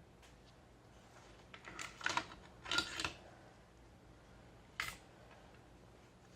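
Mechanical clicking and clattering from handling a GHK OTs-14 gas-blowback airsoft rifle: a cluster of clacks about two to three seconds in, then one sharp click near the five-second mark.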